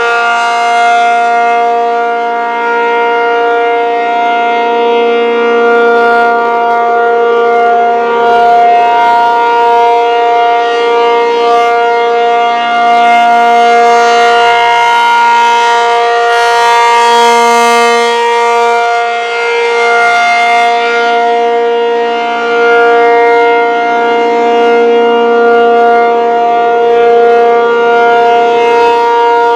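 ASC T-135 dual-tone rotating mechanical siren sounding the full alert signal: a loud steady chord held at one pitch, swelling and fading in loudness as the rotating head sweeps past.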